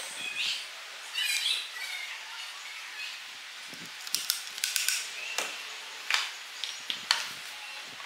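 Handling noise from scooter parts on a wooden workbench: rustling about a second in, then a run of short sharp clicks and taps from about four to seven seconds as pieces are moved and set down.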